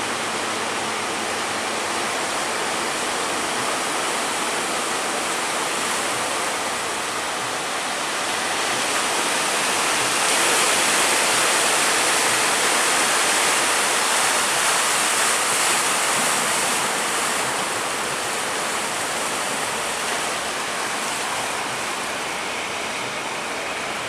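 Rough sea: a steady rush of breaking waves and churning water, swelling louder for several seconds midway before easing back.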